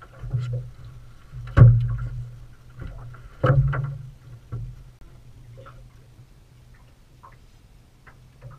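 Knocks and thumps of gear against a small fishing boat's hull and deck as a landing net and rod are handled. The two loudest come about one and a half and three and a half seconds in.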